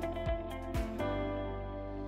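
Background music: held instrumental notes over a beat about twice a second, which drops out about a second in, leaving a sustained chord.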